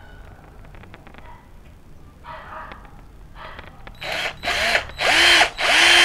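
Xenon CDD 505 cordless drill-driver turning a screw into wood through a flexible shaft extension. A few faint handling clicks come first. From about four seconds in there are three short trigger bursts, each motor whine rising in pitch, and the drill then runs steadily near the end.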